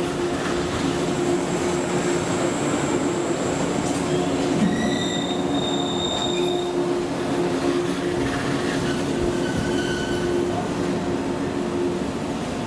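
JNR 185 series electric express train rolling past along the platform as it pulls out of the station. Thin high-pitched wheel squeals come and go over a steady rumble, strongest about five to seven seconds in.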